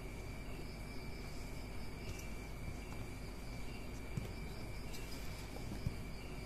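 Faint, steady high-pitched insect trill in the background, with a few light clicks.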